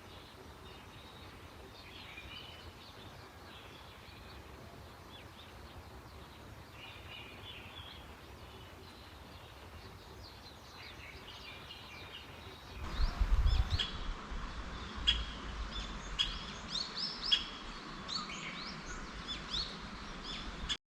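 Wild birds chirping and calling over a faint outdoor hiss. About thirteen seconds in, the sound steps up abruptly: a low rumble joins and the bird calls come denser and sharper.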